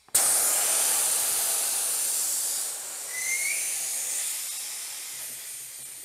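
Compressed air hissing loudly through the open valve stem of a motorcycle inner tube with its valve core removed, as the tube is aired up and let back out to settle it inside the tire. The hiss starts suddenly, dips briefly near the middle, where a short rising squeak is heard, then slowly fades.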